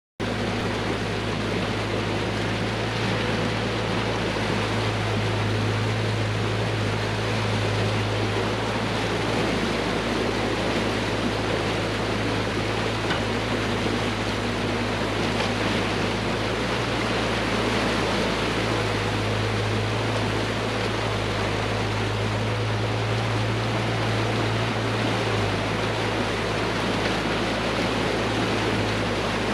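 Steady low engine drone under a constant rushing noise, cutting in suddenly at the start and holding even throughout.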